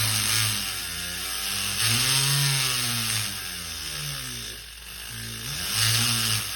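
Small electric rotary tool running, its motor speed rising and falling in several surges, as when a jeweller's bur works on an earring.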